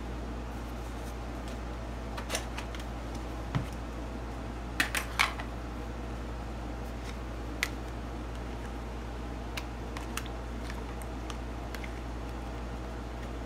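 A plastic food container being handled on a counter: sharp clicks and taps as its lid is pried off and set down, the loudest cluster about five seconds in, with scattered lighter taps after. A steady low hum runs underneath.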